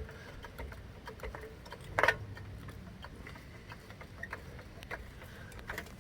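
A jack being worked under a pickup truck's front end: scattered faint metallic clicks, with one sharper clank about two seconds in.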